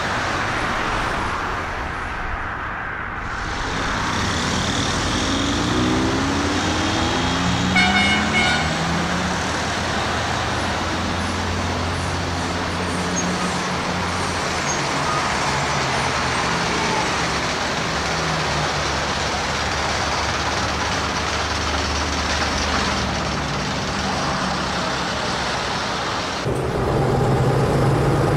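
Road traffic and vehicle engine sound effects laid over the scene: engines running steadily with traffic noise, an engine rising in pitch a few times just before a short horn toot about eight seconds in, and a deeper, louder engine drone near the end.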